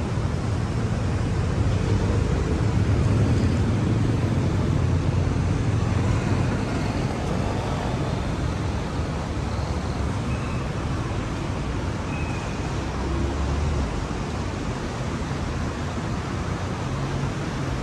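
Steady road traffic on a city street: the engines and tyres of passing cars and other vehicles, with a low rumble that swells a little early on and then eases.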